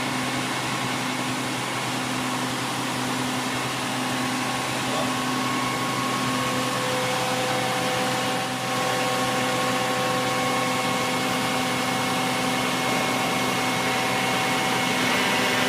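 Frac truck's centrifugal pump running steadily as it circulates fluid through the hose: an even machine hum with several held whining tones, another tone joining about six seconds in.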